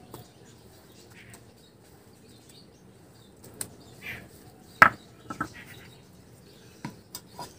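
Stone muller knocking on a flat stone grinding slab (shil and nora), a few sharp knocks, the loudest about five seconds in as the muller is set down on the slab. Birds chirp faintly.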